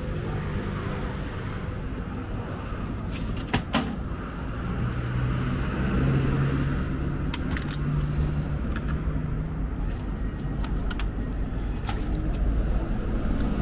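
A low, steady engine-like rumble, strongest about halfway through, with a few sharp clicks as a plastic meat pack is handled at a vending machine's delivery tray.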